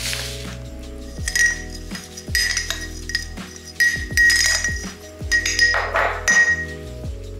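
Kitchen utensil clinking against glassware again and again, each clink ringing briefly, over background music with a steady beat.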